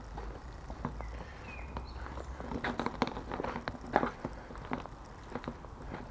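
Footsteps crunching over dry sticks, broken wood and rubble, with a run of sharp snaps and cracks thickest in the middle couple of seconds.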